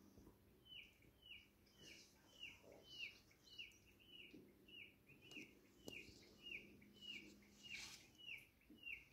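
A bird calling faintly, a short falling chirp repeated steadily just under twice a second.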